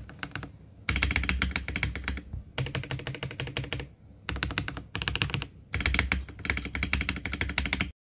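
Mechanical keyboard keys being pressed in several quick runs of clattering keystrokes with short pauses between, stopping abruptly near the end. The keyboard's stabilisers have just been greased with Permatex 22058 dielectric grease to cure their rattle.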